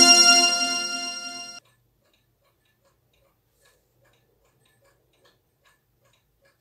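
A keyboard chord rings and fades, then cuts off abruptly about a second and a half in. After it comes faint, even ticking, about two to three ticks a second.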